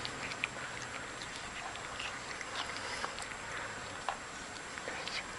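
An animal chewing food: irregular small crunches and clicks.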